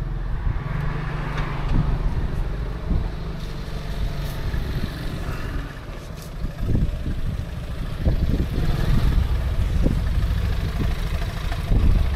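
2018 Yamaha FJR 1300's inline-four engine running as the bike rides along, mixed with wind rushing over the microphone.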